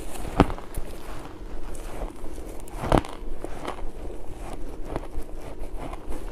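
Close-miked biting and chewing of crunchy pink ice: two loud crunches, about half a second in and about three seconds in, with smaller crackling chews between.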